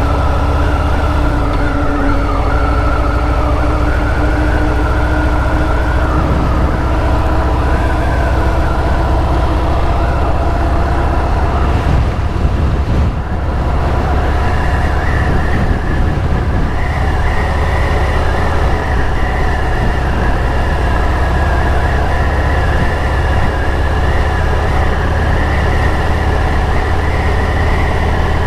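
Motorcycle underway, heard from the rider's seat: a steady low engine drone under heavy wind rush, with whining tones drifting slightly in pitch and a brief dip in level about halfway through.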